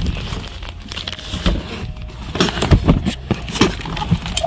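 Handling noise as a cat shelter is shifted and turned on a bed of dry leaves and twigs: irregular crackling, knocks and scrapes over a low rumble on the microphone.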